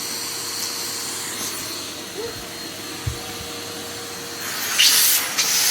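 Henry canister vacuum cleaner running: a steady motor hum with airflow hiss, a dull knock about three seconds in, and a louder rush of hissing near the end.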